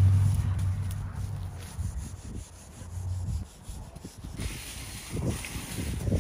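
Branches and dry leaves scraping and rustling as overgrown brush is pulled out by hand, over a low rumble that is loudest at the start and fades out within the first few seconds. The rustling grows louder about four seconds in, with a few dull thumps.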